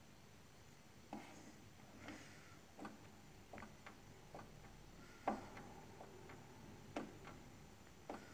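Faint clicks of the push buttons on a Sagemcom Linky three-phase electricity meter, pressed again and again to scroll the display. There are about nine irregular clicks, and the loudest comes about five seconds in.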